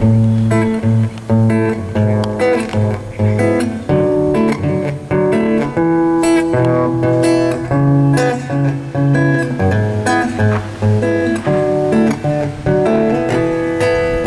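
Acoustic guitar strumming chords in a steady rhythm, an instrumental lead-in with no singing yet.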